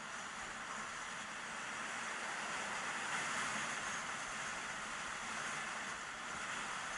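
Steady rushing hiss of a fast downhill run on snow at about 35 mph, the skis sliding over the snow with air rushing past the microphone. It swells a little about three seconds in.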